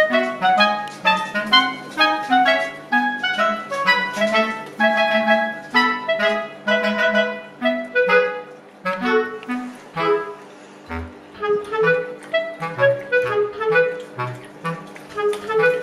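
Instrumental background music: a melody of short, bouncy notes on a clarinet-like woodwind, with a bass line coming in during the second half.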